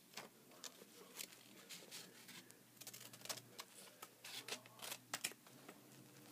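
Scissors cutting a sticky note into a strip: faint, irregular snips and small paper rustles.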